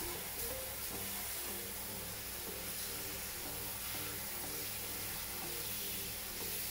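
Handheld shower head spraying water steadily onto a standard poodle's wet, lathered coat, rinsing out shampoo.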